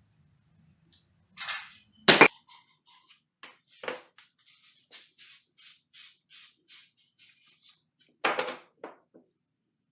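Hand tool work during a plumbing job: a loud sharp knock, then a run of short scraping strokes about three a second, and a louder scrape near the end.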